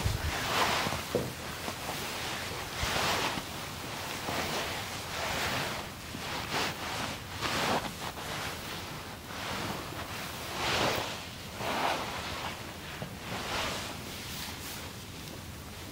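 Hands rubbing and sliding over skin in massage strokes: a series of soft swishing rubs, roughly one every second or two, uneven in strength.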